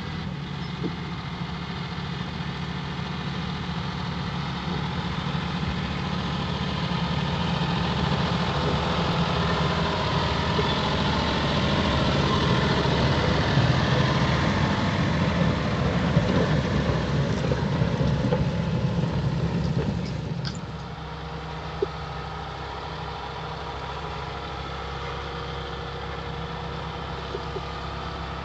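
John Deere 6175R tractor's six-cylinder diesel engine running steadily while ploughing. It grows gradually louder as the tractor approaches, then drops off suddenly about twenty seconds in to a quieter steady hum.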